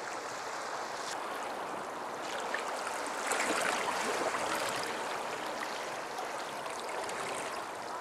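Small waves washing and lapping against rocks and concrete wave-breaker blocks at the water's edge of a calm sea, a steady wash that swells a little about three seconds in.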